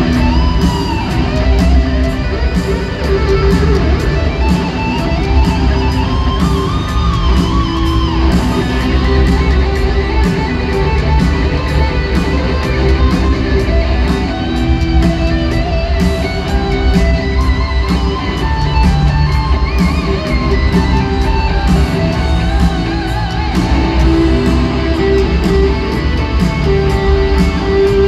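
Heavy metal band playing live: distorted electric guitars with a melodic lead line over bass and drums, with frequent cymbal hits. Heard from the audience in a large arena.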